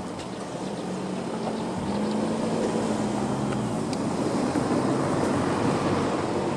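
A vehicle engine pulling away, its low hum rising slightly in pitch and growing louder over the first few seconds, over a steady rushing noise.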